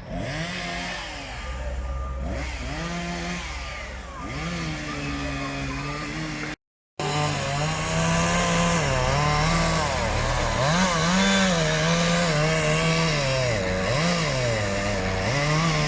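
Chainsaw engine revving up and falling back again and again, its pitch rising and dropping as it works. The sound cuts out completely for a moment about six and a half seconds in.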